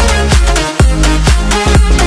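Electronic dance music with a steady, evenly repeating drum beat.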